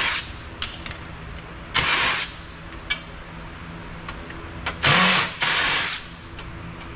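Cordless drill-driver whirring in short bursts of about half a second, four in all, backing screws out of a copier's sheet-metal panel, with a couple of sharp clicks in between.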